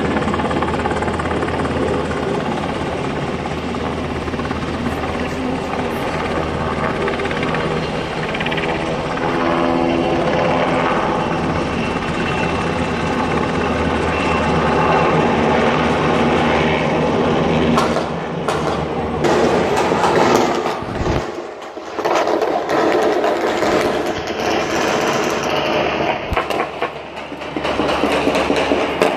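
Helicopter rotor and engine running steadily overhead. Past the middle, bursts of rapid small-arms gunfire break out over the rotor noise.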